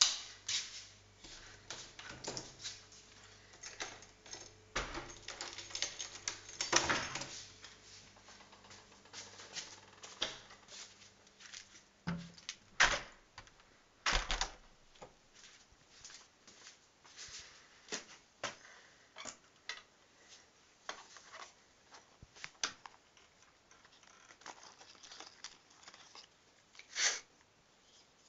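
Irregular clicks, taps and rustles of a phone being handled and moved about, with a faint low hum that stops about halfway through.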